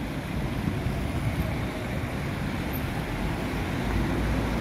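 Steady low rumble of city traffic, with no single event standing out.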